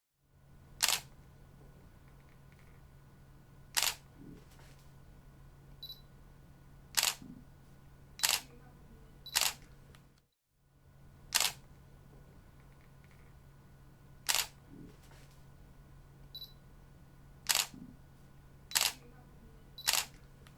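Canon EOS 60D DSLR shutter firing: single sharp mirror-and-shutter clicks, ten in all at uneven spacing, in two identical runs of five. A faint short high beep comes once in each run, and a low steady hum sits under everything.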